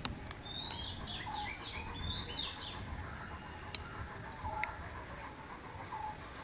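Birds chirping: a quick run of short, high, gliding notes for about two seconds. A single sharp click follows a little past the middle.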